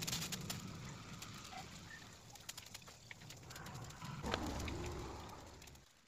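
Faint background ambience with a few short bird calls and scattered light clicks, fading out just before the end.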